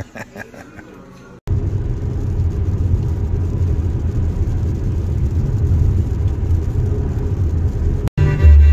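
Steady low rumble of a car on the move, road and engine noise. It starts abruptly about a second and a half in and cuts off suddenly near the end.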